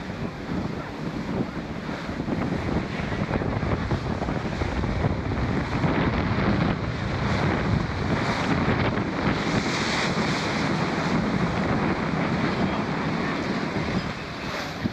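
Wind buffeting the microphone aboard a wooden sailing schooner under way, with the wash of waves and water along the hull; a steady rushing noise with no distinct events.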